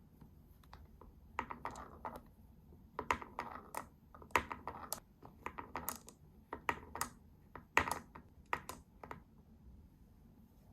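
Glass marbles rolling down a wooden HABA wave-slope marble run, clicking and clattering against the wooden track in irregular runs of sharp clicks. The clicks start about a second and a half in and die away a little before the end.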